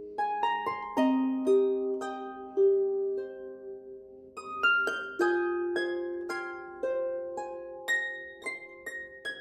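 Background music: a gentle plucked-string melody, harp-like, with single notes ringing out and fading, a few to the second.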